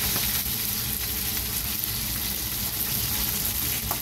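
Breadcrumbed fish fillets (Breaksea cod and King George whiting) sizzling steadily in hot oil in a frying pan.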